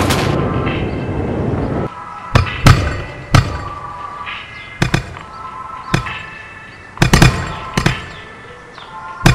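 Firework crackle fading away over the first two seconds, then sharp bangs at uneven intervals with ringing musical tones between them.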